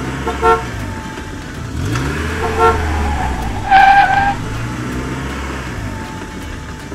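Cartoon toy-car sound effects: an engine revving up and down, with short horn toots about half a second and two and a half seconds in and a louder, longer honk about four seconds in.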